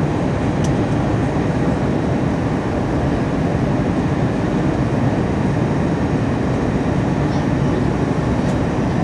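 Steady cabin noise of an Airbus A321-231 in flight: the even, low rush of its IAE V2500 turbofans and the airflow over the fuselage, heard from inside the passenger cabin.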